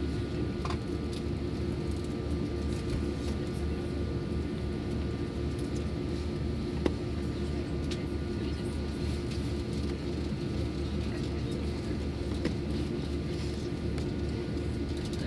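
Cabin noise inside an Airbus A320 with its jet engines idling: a steady rumble with a few steady whining tones over it. A single sharp click sounds about seven seconds in.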